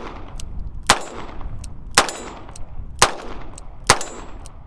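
Four gunshots from a Colt Detective Special .38 Special snub-nose revolver, fired about one a second, each with a short echo after it.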